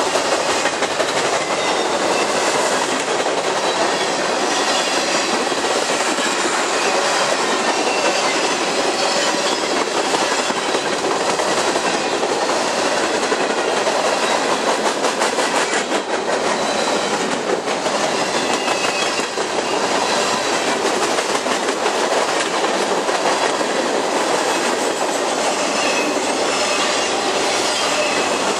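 Freight train cars rolling past at speed close by: a steady, loud rolling noise of steel wheels on rail with rapid clickety-clack from the wheels passing over the rail joints.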